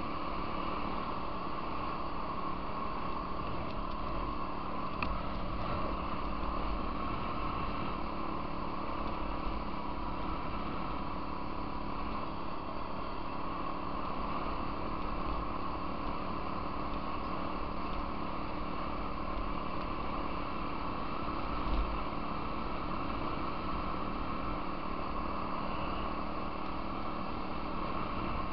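Small off-road vehicle engine running steadily at cruising speed, heard from a camera mounted on the moving vehicle, with a few low bumps from the gravel trail, the strongest about two thirds of the way through.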